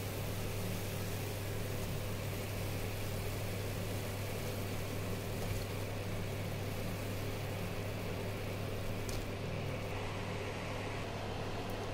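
Steady hum of an induction cooktop running under a steel pot, over the even hiss and bubbling of sugar syrup boiling hard around whole amla.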